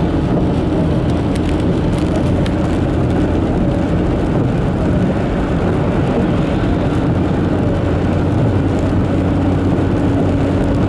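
Steady, loud mechanical drone with a constant low hum, unchanging throughout.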